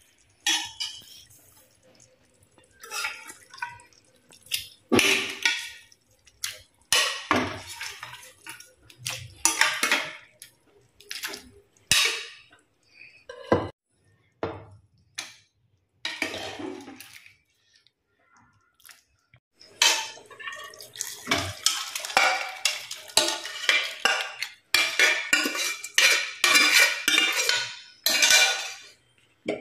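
Steel ladle clinking and scraping against metal pots as pressure-cooked mutton pieces and their cooking water are ladled into a pan of thick curry, with wet splashes. The clatter comes in irregular bursts with short pauses and is busiest in the last third.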